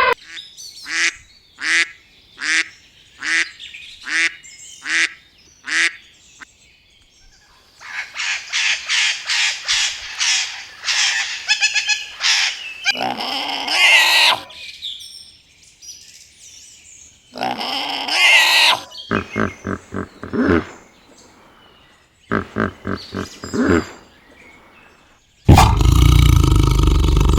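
A run of different animal calls in turn: first about eight short, evenly spaced calls, then rapid chattering calls broken by a few longer single calls, and a loud, noisy call near the end.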